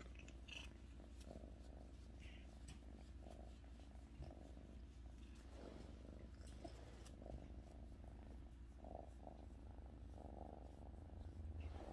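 Sphynx kitten purring faintly and steadily while it is being massaged.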